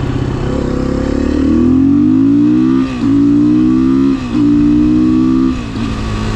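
2016 Beta 500 RS supermoto's single-cylinder four-stroke engine accelerating hard through the gears. The revs climb and then drop briefly at each of three upshifts, about three seconds, four seconds and five and a half seconds in.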